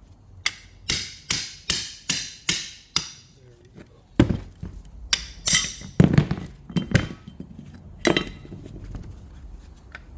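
Hammer strikes on metal, most likely on the alternator being taken apart: a quick run of about eight even taps, then a series of irregular, heavier blows.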